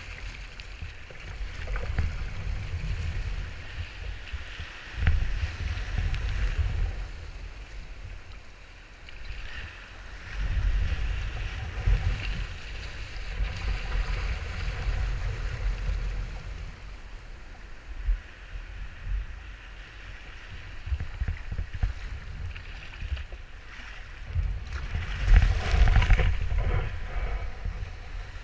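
Wind buffeting the microphone in gusts over the hiss and splash of breaking surf and foam washing around a sea kayak's hull. The water gets louder near the end, as the kayak rides a wave of white water into the shallows.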